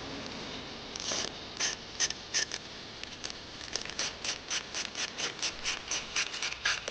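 Scratchy hand-worked scraping strokes: a few irregular strokes, then from just before the middle a quick, even run of about five strokes a second.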